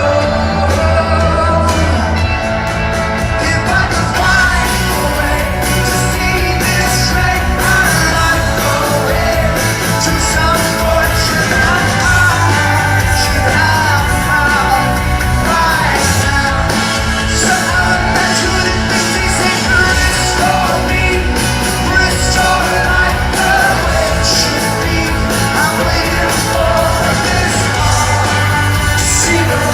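Live rock band playing loud and steady, with drums, bass and guitars, and a voice singing a wavering melody over them.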